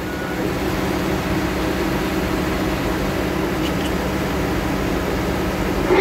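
Heavy diesel engine of logging equipment running at a steady speed, a constant low drone.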